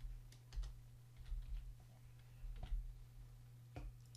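A few scattered keystrokes on a computer keyboard, typing a search term, over a steady low hum.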